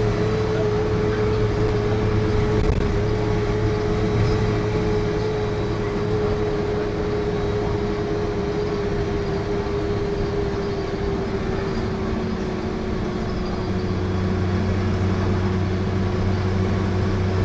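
Bus running along the road, heard from inside the passenger saloon: a steady engine hum with a constant whine that sinks slightly in pitch over the stretch.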